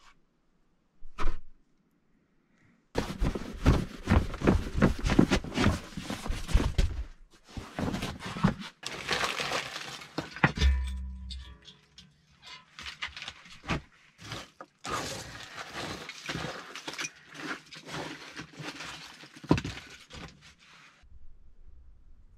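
Dry kindling and wood shavings being snapped, handled and laid into the firebox of a masonry stove: a sharp knock, then two long runs of dense snapping and crackling, with a heavy low thud between them.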